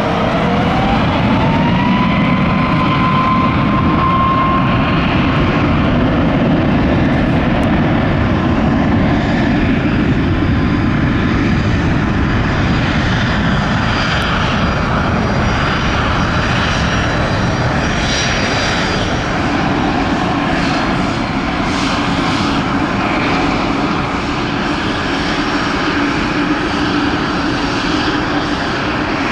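Boeing 737 jet engines spooling up to takeoff thrust: a whine rises over the first two seconds, then steady, loud jet engine noise as the airliner makes its takeoff roll down the runway.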